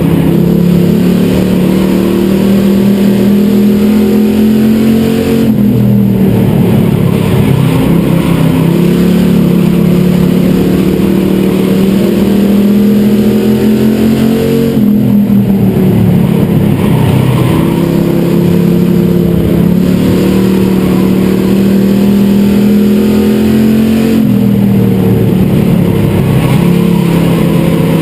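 Super Street stock car's engine heard from inside the cockpit, running hard and loud. Its pitch drops three times, about every nine seconds, and climbs back each time as the driver lifts for the turns and gets back on the throttle lap after lap.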